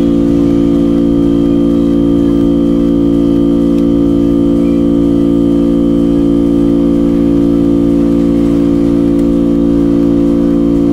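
Steady, unchanging drone of several held tones at once, deepest and strongest low down, with no breaks or strokes.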